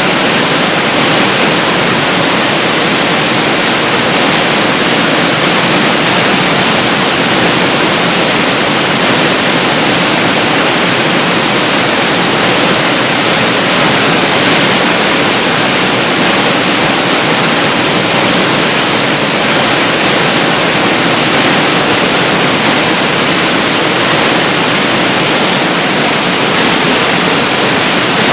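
Large artificial waterfall: a steady, loud rush of water falling and splashing into its pool.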